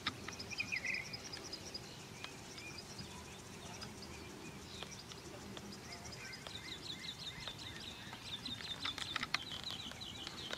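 Songbirds singing: quick runs of repeated high chirps and trills, over a low steady outdoor rumble, with a few sharp clicks about a second before the end.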